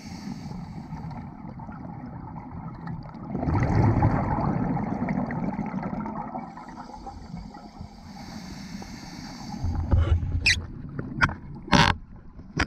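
Scuba diver's regulator breathing, heard underwater: a loud gurgling rush of exhaled bubbles about three seconds in, then a high hiss of inhalation around seven seconds. Near the end come several sharp clicks and knocks.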